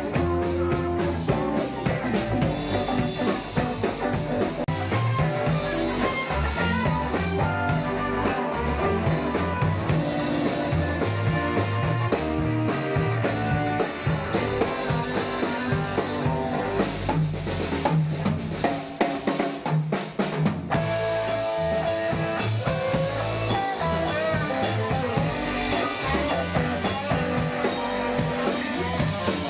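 Rock band playing: electric guitars strummed over a drum kit keeping a steady beat. The low end thins out briefly about two-thirds of the way through.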